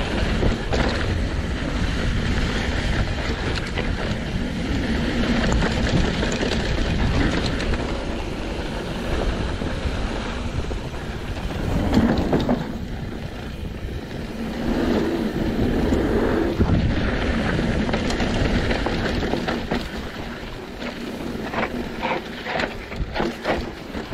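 Wind buffeting the microphone over the rumble and rattle of a mountain bike running down a dirt downhill trail, with a burst of sharp knocks and rattles near the end.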